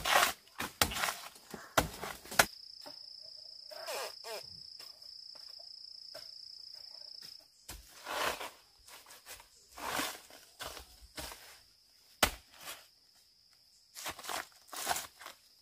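Footsteps and rustling on the ground, with sharp knocks in the first couple of seconds. From about three to seven seconds in, an insect's high steady buzz is heard.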